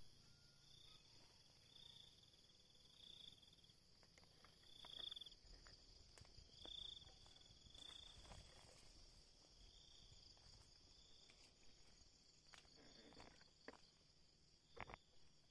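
Faint insect chorus: a steady high-pitched drone with a short chirp repeating every second or two. A few light clicks and taps sound through it, the sharpest near the end.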